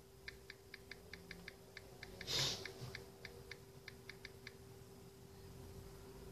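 Samsung Galaxy J7 Prime's on-screen keyboard clicking with each key tapped: a quick run of about twenty faint ticks over some four seconds as a Wi-Fi password is typed. A short breathy rush of noise about two and a half seconds in is the loudest sound, over a steady faint hum.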